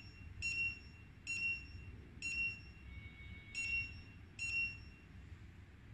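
Control panel of a COXO C-Puma int+ electric dental micro motor beeping as its program button is pressed, one beep per press while stepping through programs. Five short, high beeps, about a second apart.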